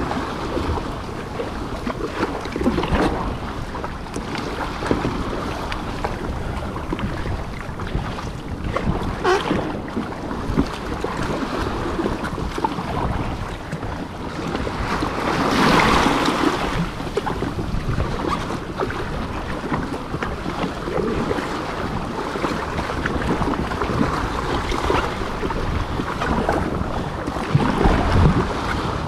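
A kayak paddled through rough open-sea swells: water rushing and splashing against the hull in irregular surges, with one louder wash about halfway through, under steady wind buffeting the microphone.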